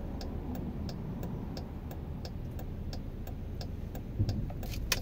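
A car's turn-signal indicator ticking steadily and evenly inside the cabin, over the low rumble of the engine and road. A sharper click comes just before the end.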